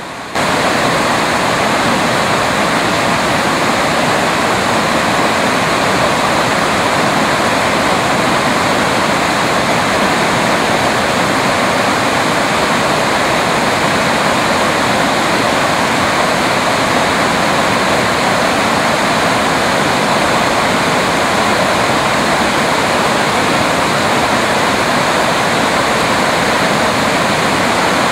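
Uracher Wasserfall in flood, swollen after days of unbroken rain, its masses of water crashing into the valley in a loud, steady rush. The rush comes in suddenly right at the start.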